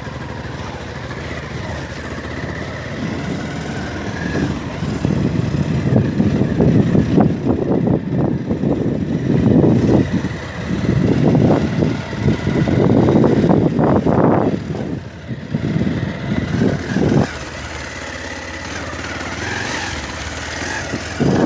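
Motorcycle engine running as the bike is ridden over a muddy, rutted dirt track, the rumble growing louder and uneven through the middle stretch before settling again.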